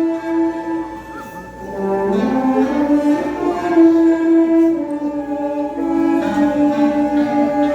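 Orchestra playing a slow passage of sustained notes, with bowed strings and brass, the melody moving in held tones.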